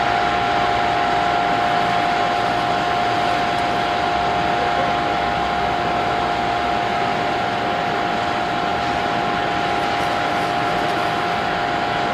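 Jet airliner noise: an even hiss carrying a constant whine, with no change in pitch or level.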